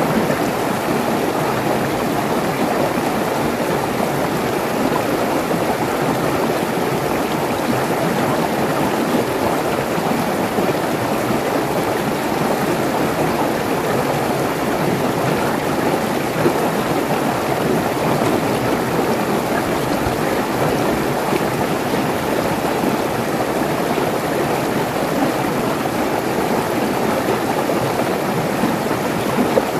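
Mountain stream tumbling over rocks in small cascades: a steady rush of splashing water.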